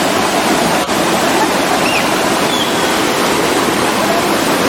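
Waterfall: a loud, steady rush of falling water that dips for an instant just under a second in.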